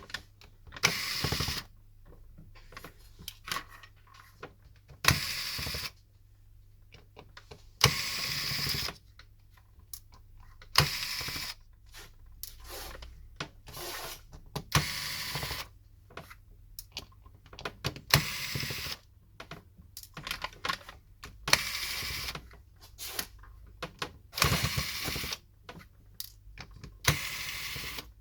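Small precision screwdriver unscrewing the tiny screws from the back of an LG Optimus L90 phone. There are about ten short scratchy bursts a few seconds apart, one per turn-out, with light clicks between as the screws and driver are handled.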